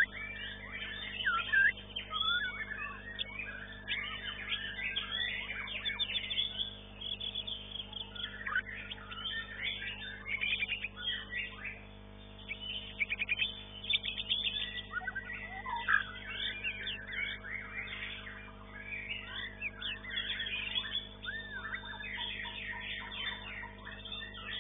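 White-rumped shama (murai batu) competition song: a dense run of varied whistled phrases and fast trills, over a steady low hum.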